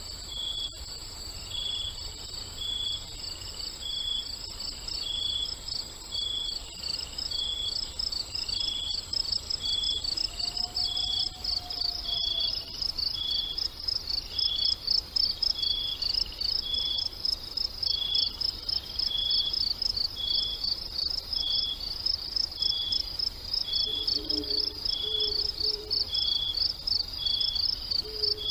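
Crickets chirping: a fast, steady, pulsing trill with a second, slower chirp repeating about every second and a half. A thin high steady tone stops about twelve seconds in.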